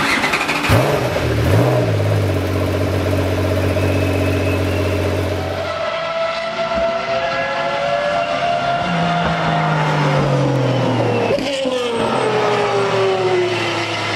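Picasso 660 LMS twin-turbo V6 starting up about a second in, revving briefly and settling into a steady idle. From about six seconds in, two of the cars run on the track, their engine notes rising and falling as they accelerate and change gear.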